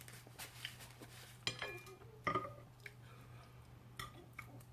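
A person chewing food with wet mouth smacks and a few sharp clicks, the strongest about one and a half and two and a quarter seconds in.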